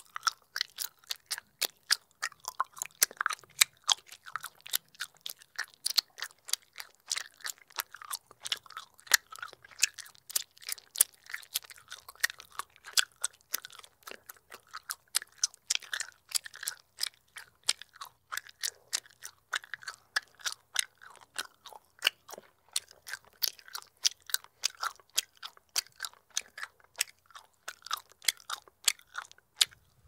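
Bubble gum being chewed: a steady run of quick smacking clicks, several a second, without a pause.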